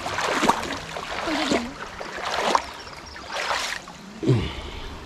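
Water sloshing and splashing in a shallow stream in surges about once a second, like steps wading through it.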